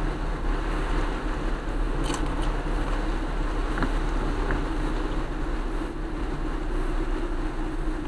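Steady in-cabin road noise of a car driving on a wet road in the rain: tyre and engine rumble with a constant rushing hiss, and a few faint ticks in the middle.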